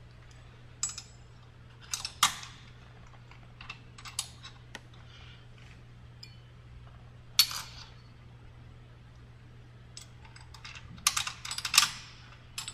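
Scattered clicks and metallic clinks of bolts, tools and guard panels being handled while the guards of an indoor cycling bike are refitted, in several isolated knocks and then a quicker cluster near the end.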